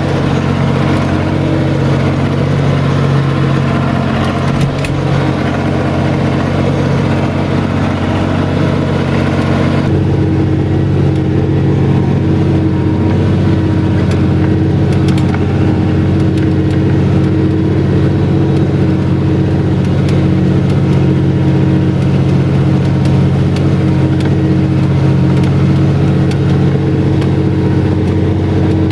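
SAME Laser 110 tractor's diesel engine running steadily at an even pace. About ten seconds in, the hiss above it drops away while the engine note carries on.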